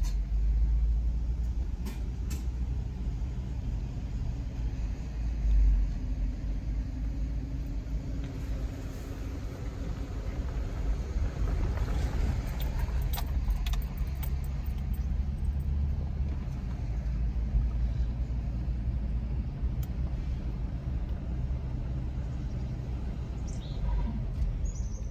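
Car driving slowly, heard from inside the cabin: a low, steady rumble of engine and road.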